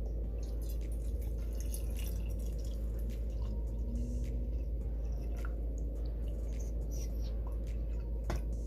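Coffee dripping and trickling into a cup, with scattered light clicks, over a steady low hum.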